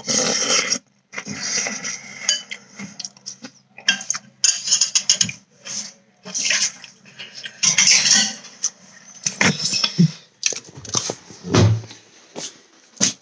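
A metal spoon clinks and scrapes in a bowl of Cinnamon Toast Crunch cereal, mixed with close, crunchy chewing of the cereal in irregular bursts.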